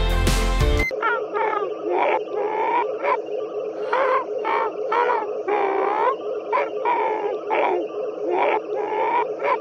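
Sci-fi alien-voice sound effect from the TV: a string of short warbling, chirping calls that rise and fall about twice a second over a steady buzzy drone.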